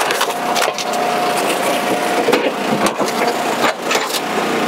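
Northern red oak round being forced through the box wedge of a hydraulic log splitter: the wood cracks and crunches in a string of sharp snaps over the splitter's engine running steadily underneath.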